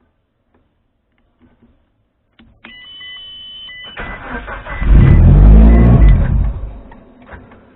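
Mitsubishi Lancer Evolution IX being started: a steady electronic beep from the dash for about a second, then the starter cranks and the turbocharged 2.0-litre four-cylinder fires and revs briefly before fading out within a couple of seconds. The ignition switch is making poor contact.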